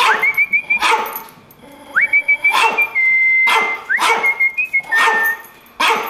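Dogs barking over and over in short sharp barks. Between the barks comes a thin, high-pitched whine that slides up and holds for a second or so at a time.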